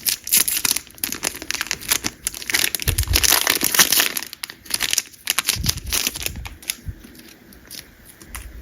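A trading-card booster pack wrapper crinkling as it is handled and opened, dense for the first five seconds or so, then lighter rustling and clicks as the cards are handled.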